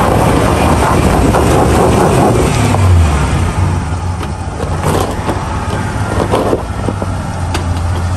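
Nissan Patrol 4x4's engine pulling under load as it crawls up a loose rocky slope, tyres slipping and grinding on gravel. Gravel noise is heaviest over the first few seconds, then stones knock sharply under the wheels a few times.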